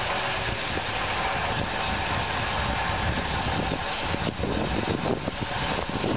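Heavy six-wheel truck's engine running steadily as it hauls a rope out of a hole cut in the ice, with rough, uneven noise over it in the second half.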